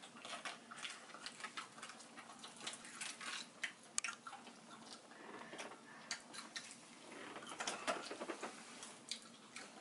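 Faint, scattered clicks and small taps of eating, with one sharper click about four seconds in: chicken wings being pulled apart and chewed, and a plastic sauce cup being handled.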